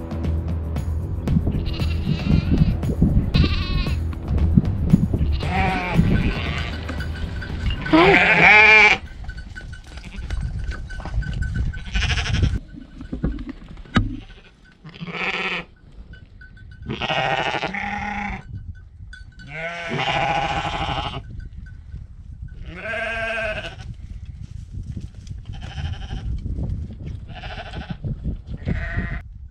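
A flock of horned sheep bleating close by, one call after another every couple of seconds.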